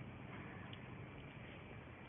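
Faint steady background hiss of room tone, with a faint tick about two-thirds of a second in.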